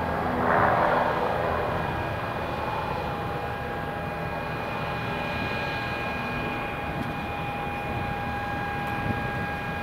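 Partenavia P.68C twin piston engines and propellers at takeoff power as the aircraft lifts off and climbs away, a steady drone that swells briefly about half a second in and then fades slightly.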